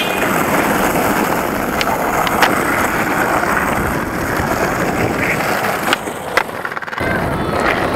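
Skateboard wheels rolling on rough asphalt, a steady grinding rumble, with a few sharp clacks of the board, the loudest near the end as the skater pops and lands.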